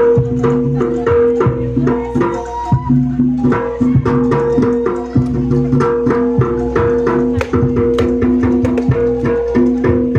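Jaranan ensemble music: rapid, dense drum and struck-percussion strokes over a few held tones.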